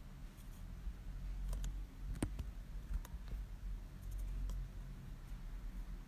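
Scattered light clicks, about half a dozen, the sharpest a little past two seconds in, over a low steady hum.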